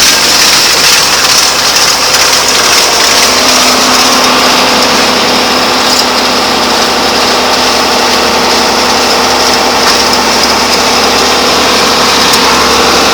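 Vermeer 504C round baler running steadily off a tractor's power take-off, the tractor engine's drone mixed with the baler's moving machinery.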